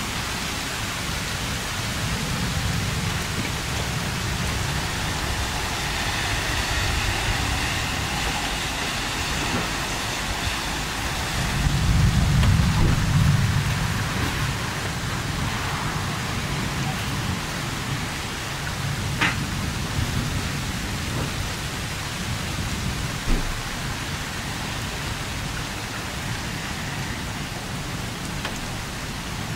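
Rain falling steadily in a thunderstorm, with a long low rumble of thunder that swells about twelve seconds in and fades over a few seconds. Two brief clicks come later.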